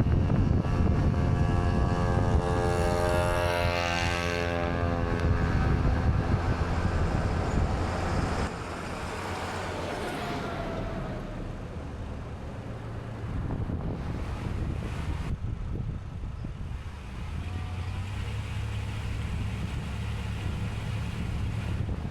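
Steady vehicle and wind rumble, with an engine passing by that rises and then falls away, loudest about four seconds in. The rumble drops to a lower level about eight seconds in.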